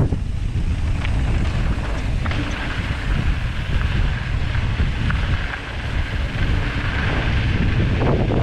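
Wind rushing over the microphone of a mountain bike's camera on a fast downhill run, with tyre noise from the loose dirt and gravel trail.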